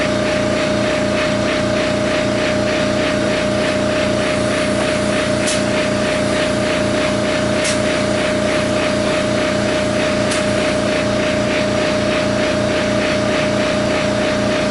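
A motor running steadily with a constant whine and a fast, even pulsing, with three brief sharp ticks about five, eight and ten seconds in.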